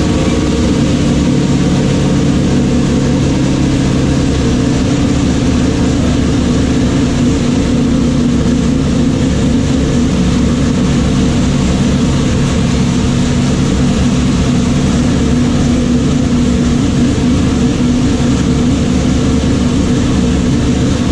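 Freshly built 410 cubic-inch stroker small-block Chevy V8 with Holley Sniper EFI running steadily, loud and even, during its first runs after the engine build.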